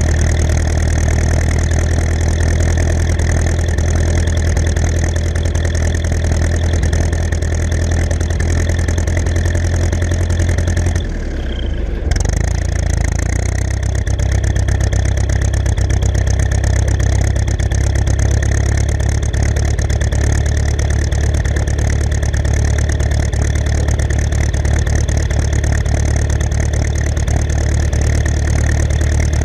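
Ursus C-360 tractor's four-cylinder diesel engine running steadily under way, with a brief dip in the sound about eleven seconds in.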